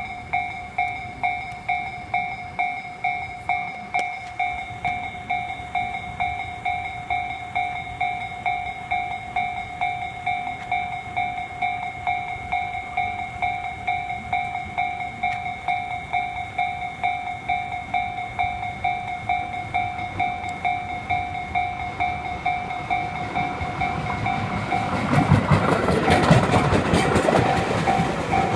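Railway level crossing warning bell ringing in a steady two-tone pulse, about two strikes a second, signalling that a train is approaching. From about 24 seconds in, the rumble and wheel clatter of a passing electric train rise over the bell.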